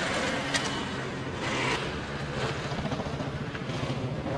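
Road traffic passing on a bridge: a steady rush of car engines and tyres, with a couple of short clicks.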